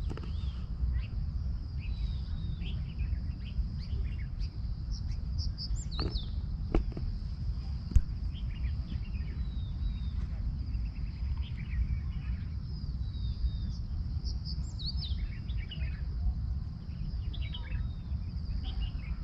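Many small wild birds chirping and calling in quick, overlapping phrases over a steady high hiss and a steady low rumble. A few sharp clicks fall about 6 to 8 seconds in.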